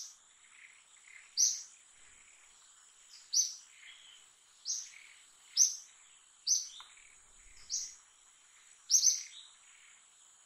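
A bird calling repeatedly with short, sharp, high chirps that fall in pitch, about once a second, one of them doubled near the end. The calls sit over a steady high whine.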